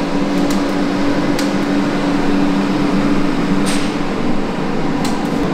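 A steady mechanical hum and whir with a low drone, broken by a few sharp clicks.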